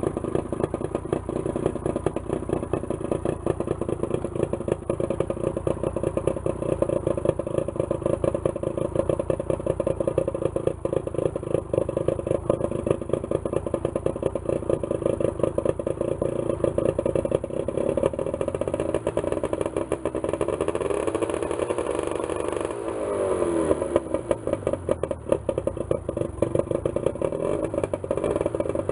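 Freshly rebuilt 1973 Johnson 50 hp two-stroke, two-cylinder outboard motor running in neutral with the cowling off, a steady rapid firing clatter, with a brief shift in its note about three-quarters of the way through.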